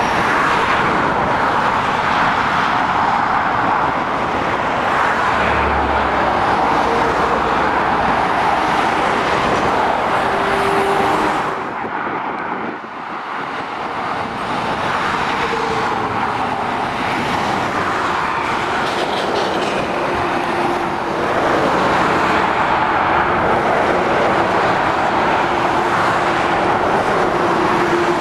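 Road traffic passing on a dual carriageway: lorries and cars making a steady roar of tyres on asphalt with faint engine drone, dipping briefly about twelve seconds in.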